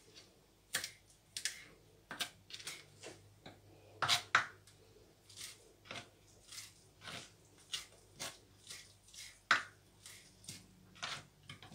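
Kitchen knife chopping fresh basil on a plastic cutting board: a run of short, irregular knocks of the blade on the board, roughly two a second.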